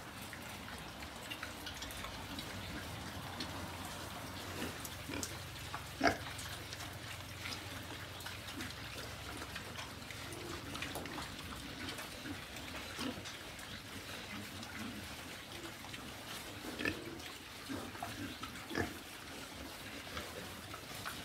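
A pen of pigs feeding on chopped greens: scattered short grunts among wet chewing and snuffling, with one sharper click about six seconds in.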